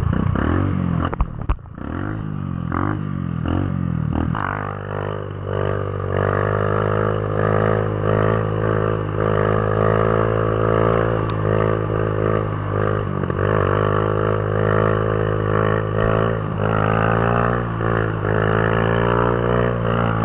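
Motorcycle engine running while riding, its pitch rising and falling sharply in the first few seconds as the throttle changes, then holding a fairly steady note.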